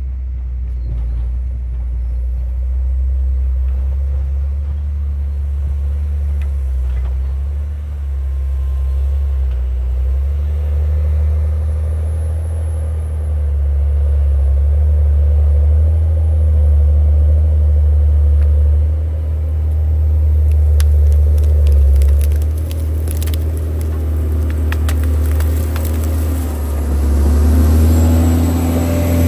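John Deere 670GP motor grader's diesel engine running with a steady, heavy low rumble as it works a dirt road. Sharp ticks and crackles, like gravel and stones under the machine, come in the latter part.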